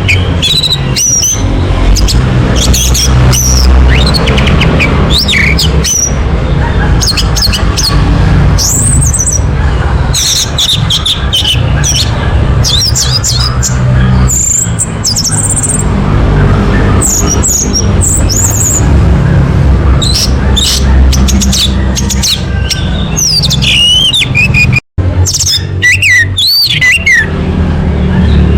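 Orange-headed thrush song: a fast run of varied, curving whistled phrases and mimicked notes, over a loud low drone. The sound cuts out for an instant about 25 seconds in.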